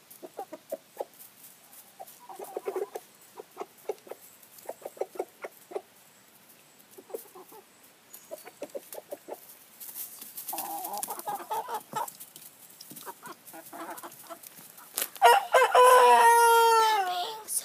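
Backyard chickens clucking in many short, soft calls, then a rooster crows loudly about fifteen seconds in, a long call that falls in pitch at its end.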